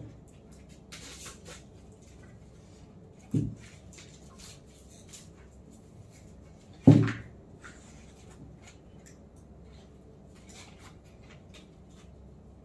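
Unpacking a canvas board by hand: light rustling and clicking of its plastic wrapping being handled and cut with scissors. Two dull thumps, about three and a half and seven seconds in, as the board knocks against the table; the second is the loudest.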